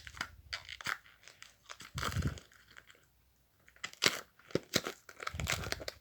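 Close-up handling noise of toys in hands: scattered sharp clicks and taps with crinkly rubbing, and two longer bouts of rubbing with a low rumble, about two seconds in and again near the end.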